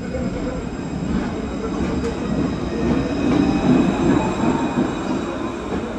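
Tram running on rails, its rumble growing louder to a peak about three and a half seconds in and then easing off.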